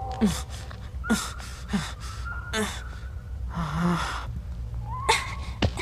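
A cartoon character's voice giving short gasps and grunts of effort, one roughly every 0.8 seconds, each falling in pitch, while he hauls himself up a rock face on a rope. A steady low hum runs underneath.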